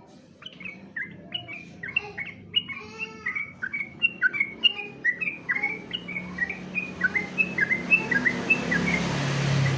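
Sooty-headed bulbul (trucukan) singing: a long run of short, clear whistled notes, several a second, jumping up and down in pitch. A hiss builds under the song near the end.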